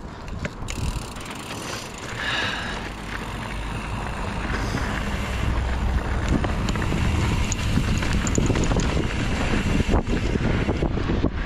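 Wind buffeting the microphone and a mountain bike rattling over rough trail, the rumble and clatter growing steadily louder as the bike picks up speed.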